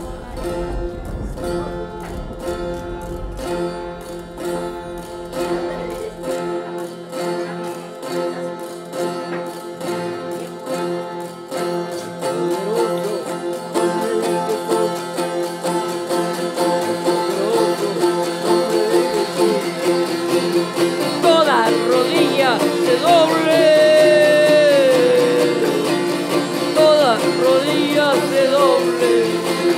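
Music: plucked string instruments strummed in a steady rhythm, with a low rumble under the opening that stops about six seconds in. A voice joins singing a melody about two-thirds of the way through.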